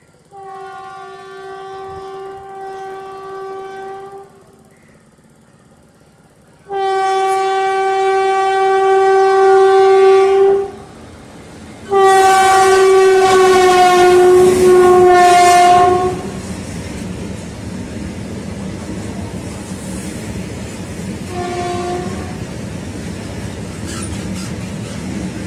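WAG-7 electric locomotive sounding three long horn blasts as it approaches. The last blast drops slightly in pitch as the engine passes. The steady rumble and clickety-clack of its covered freight wagons rolling by follows, with one short faint toot of the horn about three-quarters of the way through.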